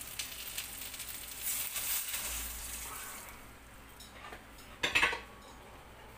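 Coconut milk poured into a hot stainless steel pot of fried tuna: the sizzle swells, then dies away about three seconds in as the liquid covers the pan. A sharp clatter of dishware follows about five seconds in, the loudest sound.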